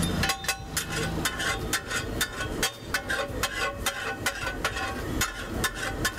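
Metal spatula striking a flat iron griddle (tava) in quick, repeated clanks, about four a second with a short metallic ring, as the bhaji is chopped and mixed on it.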